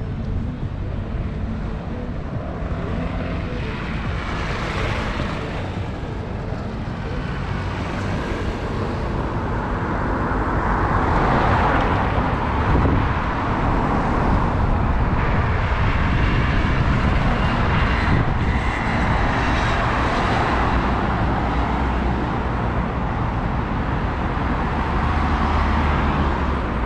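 City street traffic: cars passing one after another on a wide road, each swelling and fading over a steady low rumble.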